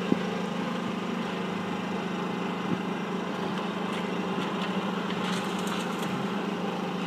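Race car engine idling steadily, an even low hum, with one sharp click right at the start.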